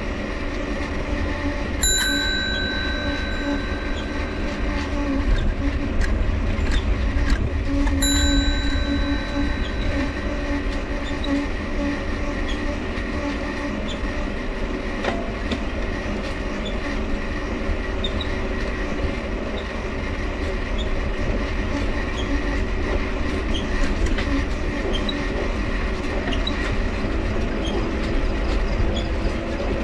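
Mifa folding bike being ridden: steady rumble of the tyres with the dynamo humming, and the cranks squeaking. A ringing tone sounds twice, about 2 and 8 seconds in, each fading over a couple of seconds.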